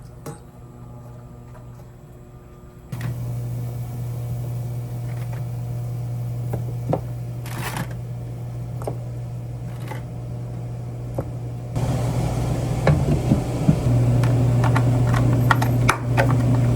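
A kitchen appliance's motor hums steadily. It switches on suddenly about three seconds in and grows louder near the end, with scattered clicks and clinks over it.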